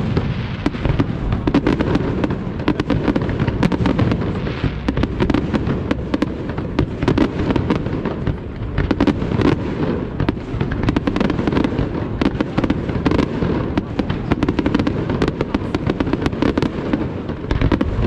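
Aerial fireworks display: a dense, unbroken barrage of shell bursts and crackle, many bangs a second over a steady low rumble.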